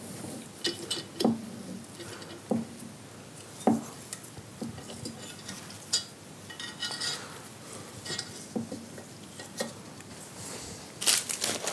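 Light metal clicks, clinks and scrapes of a valve spring compressor being eased off a valve spring on a motorcycle cylinder head, releasing the spring tension onto the collar. A louder clatter of clicks comes near the end.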